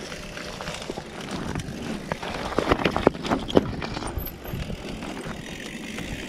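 Bicycle rolling over a bumpy dirt trail: a steady rush of tyre and wind noise with rattling clicks and knocks from the bike, thickest a couple of seconds in.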